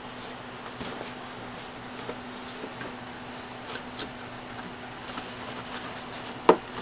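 Cardboard model-kit box being handled, its lid worked back on: faint rustling and light scrapes of cardboard, with one sharper knock near the end. A steady low hum runs underneath.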